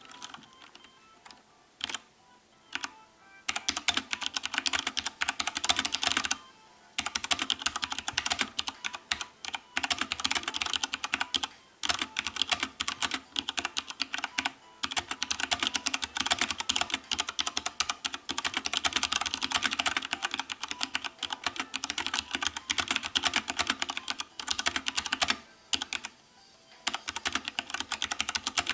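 Fast typing on a mechanical keyboard with Cherry MX Brown tactile switches: a few scattered keystrokes, then a dense run of key clacks from a few seconds in, broken by a few brief pauses.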